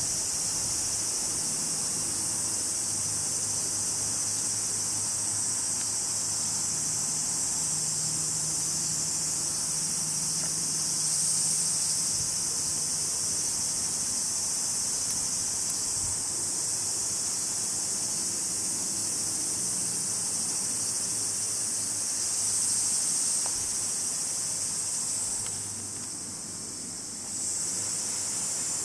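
Steady high-pitched chorus of insects shrilling, swelling a couple of times and dipping briefly near the end.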